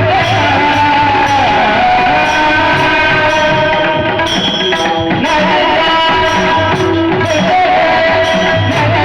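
Devotional kirtan music: a held, wavering melodic line over steady drum beats.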